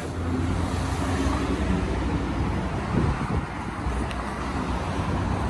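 Road traffic noise: a car running close by, with a steady low rumble.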